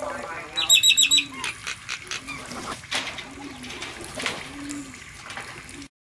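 Rural field ambience with birds calling: a quick run of five high notes about a second in, over a low short call that repeats roughly once a second. The sound cuts off just before the end.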